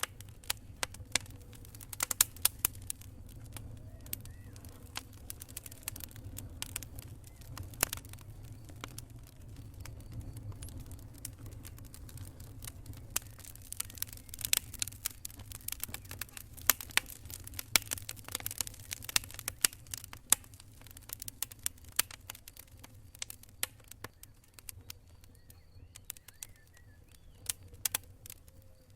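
Wood campfire crackling: irregular sharp pops and snaps, several a second in busy stretches, over a steady low rumble.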